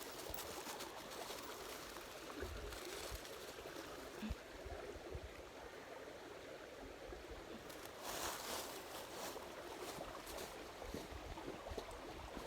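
Creek water running and trickling steadily, with a few brief louder rushes about eight seconds in.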